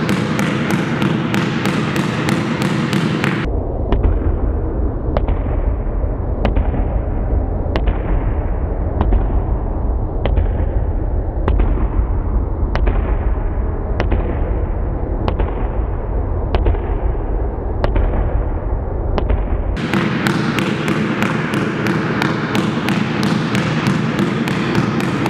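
Basketball bouncing on a gym floor in a fast low dribble, sharp bounces about four a second. In the middle stretch the bounces give way to duller, ringing knocks about once a second over a steady low rumble.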